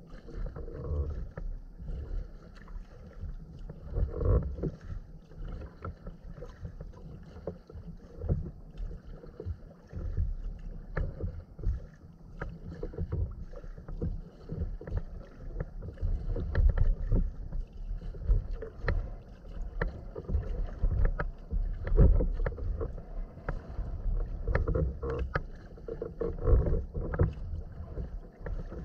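Sea kayak being paddled: water splashing and dripping from the paddle with each stroke and lapping against the hull, over an uneven low rumble.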